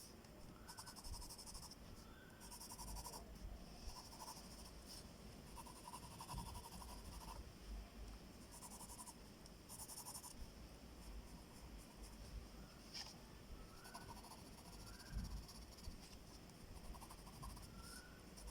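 Faint pencil strokes scratching on paper in short bursts, a hand drawing and shading a technical drawing.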